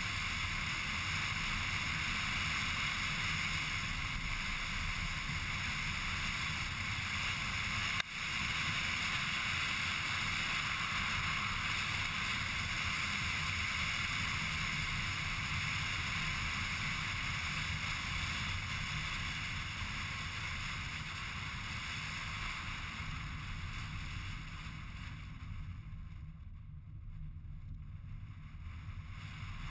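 Steady engine, tyre and wind noise of a car driving along a sealed country road, heard from a camera inside the car. There is a single sharp knock about eight seconds in, and the noise eases off near the end.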